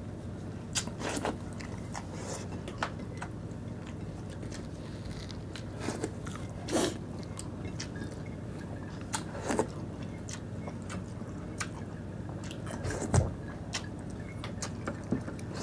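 Close-miked eating: mouth sounds of chewing rice and canned tuna, with scattered wet clicks and lip smacks over a low steady hum. A dull thump comes a little before the end.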